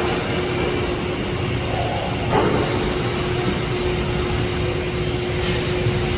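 Pipe welding arc burning steadily: a constant crackling hiss with a steady hum under it, and one brief click about two and a half seconds in.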